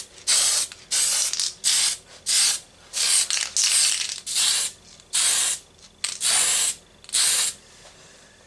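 Aerosol can of Tamiya fine surface primer spraying in about ten short hissing bursts, one every half second or so, as a primer undercoat goes onto a bare metal diecast car body.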